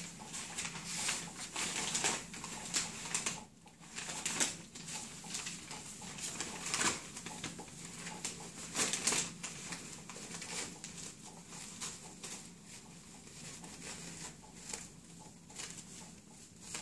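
Puppies about five and a half weeks old playing on newspaper and blankets: irregular rustling and crinkling of paper and scuffling paws, busier in the first half and thinning out later.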